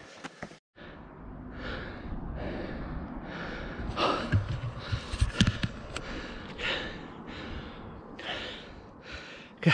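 A man panting hard, out of breath from a steep uphill walk, taking quick breaths about three every two seconds. Wind rumbles on the microphone, with a couple of thumps in the middle.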